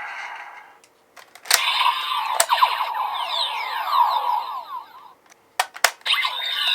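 Electronic sound effects from the DX Vrocan Gatling toy's speaker: a click sets off a run of many quick falling pitch glides lasting about three seconds. After a short pause, two more clicks come and another electronic effect starts near the end.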